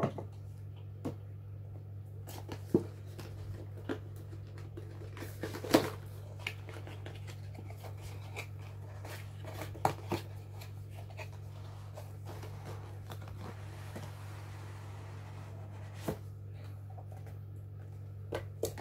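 Cardboard camera box and clear plastic case handled and opened by hand: scattered taps, clicks and light scrapes, the loudest a little under six seconds in, over a steady low hum.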